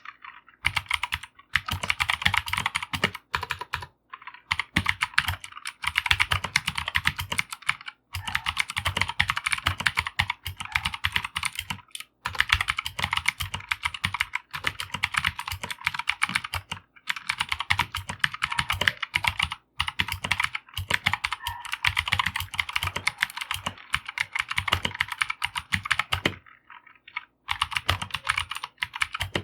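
Fast, continuous typing on a Keychron K2 version 2 hot-swappable mechanical keyboard with a plastic body: rapid keystroke clicks, broken by brief pauses every few seconds and a pause of about a second near the end.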